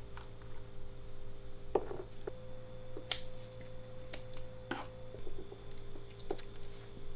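Scissors snipping edible snails: a handful of short sharp snips and clicks a second or so apart, over a steady hum.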